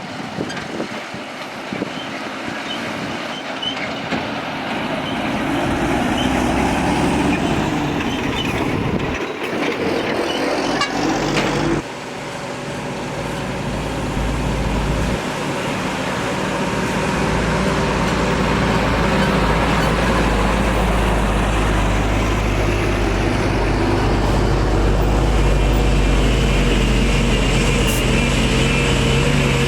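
Heavy diesel earthmoving machinery at work: engines running and getting louder as a machine draws near, with a deep, steady engine drone in the second half.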